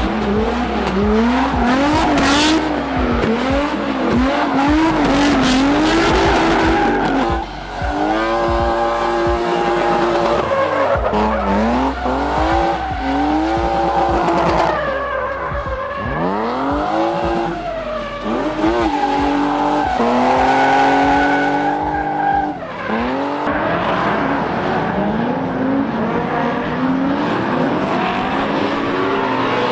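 Drift cars' engines revving hard, their pitch rising and falling over and over, with tyres squealing and skidding as the cars slide through the corners.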